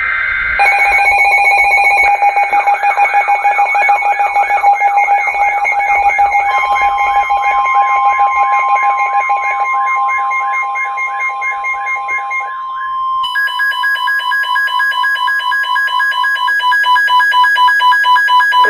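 Emergency Alert System alert tones announcing a severe thunderstorm warning: several electronic alarm tones overlap, warbling and pulsing. About 13 seconds in they change to a different set of tones that pulse rapidly.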